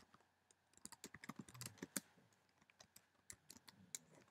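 Faint clicking of computer keyboard keys being typed, in two short runs of irregular keystrokes.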